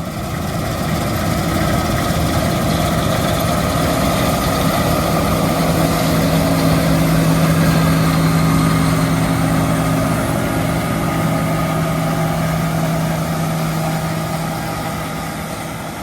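John Deere 9750 STS combine running, its six-cylinder PowerTech diesel giving a steady, even-pitched drone that fades in at the start and eases off near the end.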